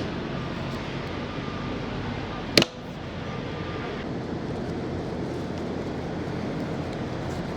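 Steady rumble of an idling semi truck, with one sharp click about two and a half seconds in.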